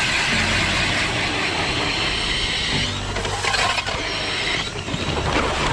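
Milwaukee 2704 cordless drill turning a Strikemaster 8-inch hand auger through lake ice: a steady motor whine and the grinding of the cutting blades. About three seconds in the steady run breaks off into shorter, uneven spurts.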